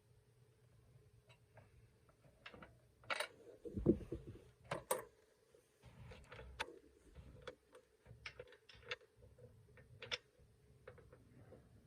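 Irregular light clicks and knocks of an oil-filled radiator heater's casing and parts being handled and fitted back together, with a dull thump about four seconds in.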